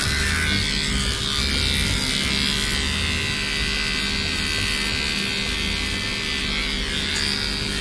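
Cordless electric pet trimmer running steadily as it clips the hair on a toy poodle's face: a continuous, quiet hum with a buzzing edge.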